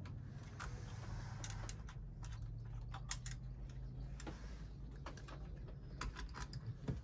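Light, irregular metallic clicks and taps of a small wrench working the throttle linkage on a marine engine, over a faint low hum.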